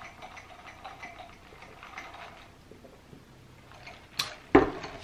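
Faint chewing and small mouth clicks as rotisserie chicken is eaten. Near the end comes a sharp click, then one heavy thump as a large paper drink cup is handled.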